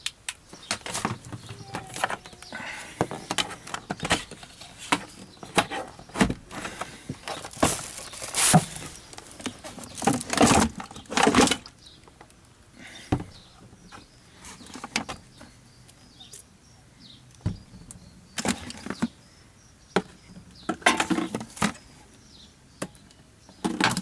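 Campingaz 12-volt cool box being opened and its contents handled: plastic bottles and freezer blocks shifted and knocked against the plastic walls. It is a string of irregular knocks, crackles and rustles, louder in clusters around the middle and again near the end.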